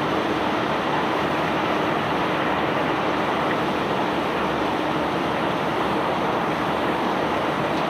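Self-unloading barge discharging bulk cargo: a steady, dense rushing of material pouring off the unloading machinery, with a faint steady machine hum beneath.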